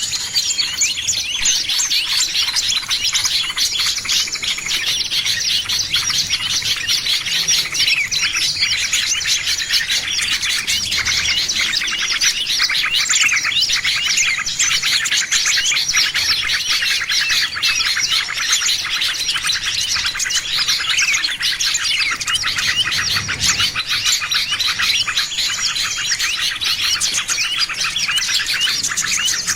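Many small birds chirping and twittering at once in a dense, unbroken chorus of rapid, overlapping high calls: a lure call used to draw small birds in.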